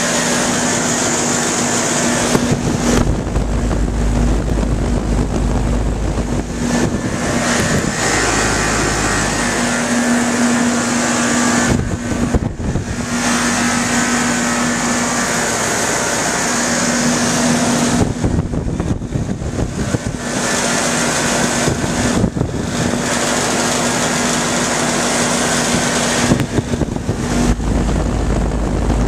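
Old Luxaire heat pump running: a steady hum under the even rush of its fan, with a low rumble coming and going a few times.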